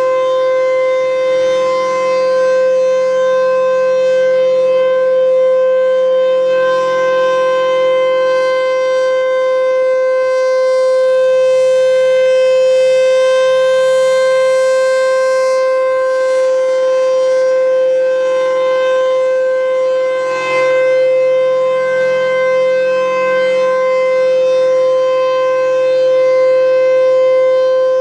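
Federal Signal Thunderbolt 1000 rotating civil defense siren sounding a loud, steady tone at a constant pitch. The tone swells slightly and turns brighter for several seconds in the middle as the rotating head sweeps past.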